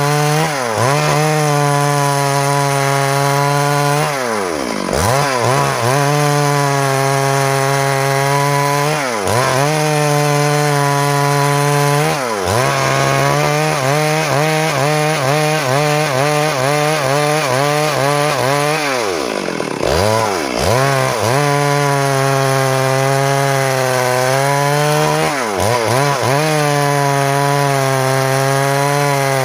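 Stihl MS382 two-stroke chainsaw ripping lengthwise through a log at full throttle. The engine pitch dips sharply and recovers several times as the chain bogs under load in the cut.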